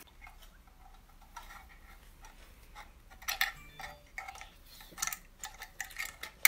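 Small plastic clicks and ticks from handling a black plug-in power adapter, coming irregularly, with a few louder clicks in the second half and a sharp one at the very end.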